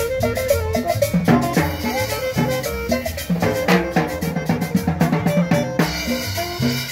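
Upbeat Latin dance music with a steady drum beat and bass.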